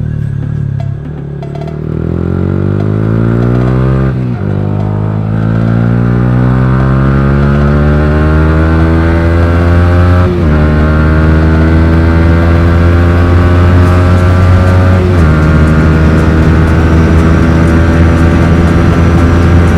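Yamaha R15 V3's 155 cc single-cylinder engine, breathing through an R9 aftermarket exhaust, accelerating hard through the gears. The revs climb steadily and dip briefly at three upshifts, about 4, 10 and 15 seconds in, then hold high near the end.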